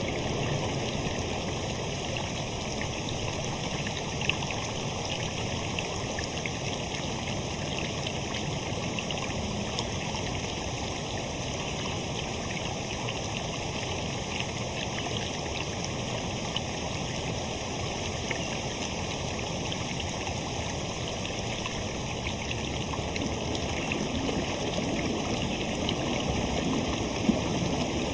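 Running water rushing steadily, with two brief clicks, one about four seconds in and one near the end.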